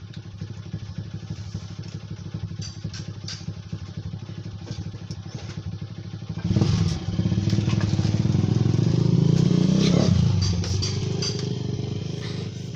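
An engine running steadily, getting louder about six and a half seconds in, with its pitch swinging near ten seconds before it eases off; faint clicks sound over it.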